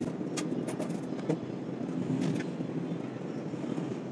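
Steady low background rumble with a few light, sharp clicks scattered through it, from PVC drain pipe fittings being handled and fitted overhead.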